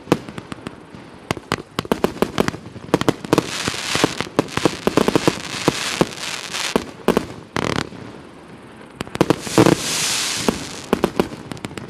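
A 102-shot, 1-inch consumer fireworks cake firing: a rapid, irregular string of bangs as the shots launch and burst, with two spells of dense crackling, one in the middle and a louder one near the end.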